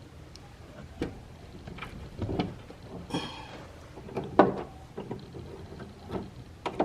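Irregular knocks and clunks of hands working on a car door's window glass and its slider hardware, with a brief rasping scrape about three seconds in. The loudest knock comes a little past four seconds.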